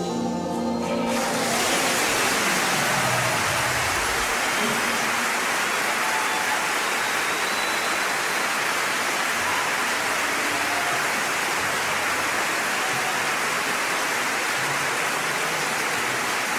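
Orchestra's final chord dying away about a second in, followed by a large audience applauding steadily.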